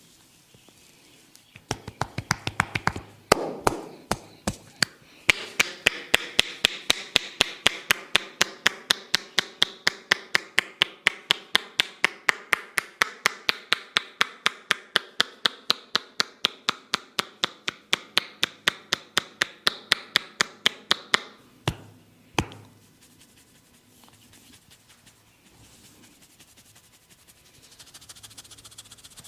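Hands striking rapidly and rhythmically on a head in a percussive massage, about four sharp strokes a second. The strokes start about two seconds in, falter briefly near four seconds, then run evenly until about twenty-one seconds, with two last strikes just after.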